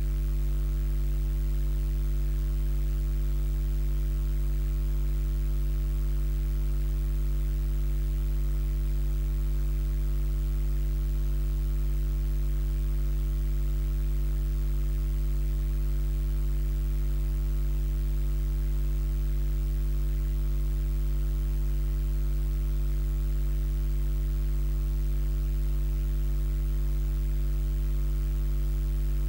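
Steady electrical mains hum: a low, buzzy drone with a faint hiss over it, unchanging throughout, the sign of electrical interference picked up by the recording.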